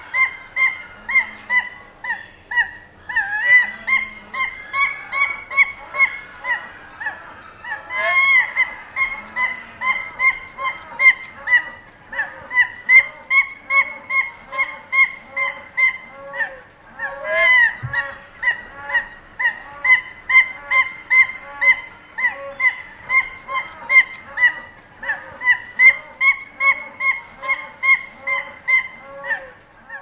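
Hawaiian goose (nene) calling close up: a long run of short, repeated honks, about two a second, with a brief lull about sixteen seconds in. Other waterfowl of the collection call faintly in the background.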